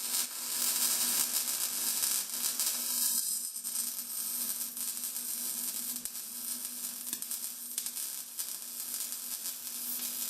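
MIG welder arc welding steel tubing for a table frame: a steady crackling sizzle with a low steady hum underneath.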